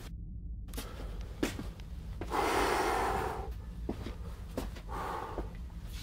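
A person breathing out heavily close to the microphone, once for about a second and then more briefly, with scattered light clicks and knocks over a low steady hum.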